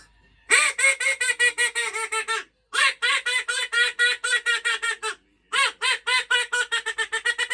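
Duck quacking sound effect: fast, evenly spaced quacks, about seven a second, in three runs of about two seconds with brief pauses between.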